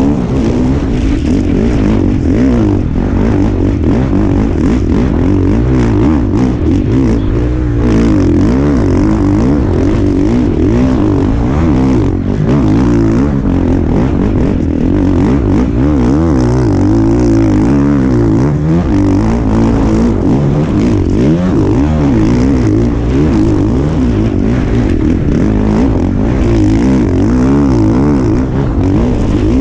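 Dirt bike engine being ridden hard, revving up and down without pause, its pitch rising and falling over and over as the throttle opens and closes.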